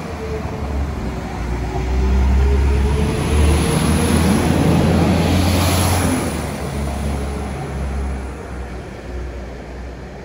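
Transport for Wales Class 197 diesel multiple unit running past close by on the platform line, over a steady low engine hum. The rumble builds to a peak between about four and six seconds in, then fades as the train pulls away.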